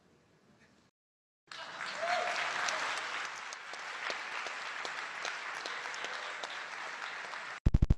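Large audience applauding, starting about a second and a half in. Near the end the applause cuts off abruptly into a loud, rapid buzzing pulse.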